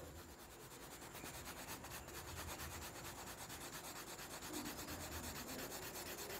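Oil pastel rubbed across paper in quick, even back-and-forth strokes while colouring in an area; a faint, steady rubbing.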